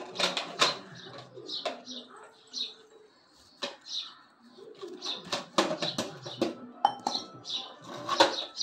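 Small birds chirping again and again, mixed with sharp clicks and clatters.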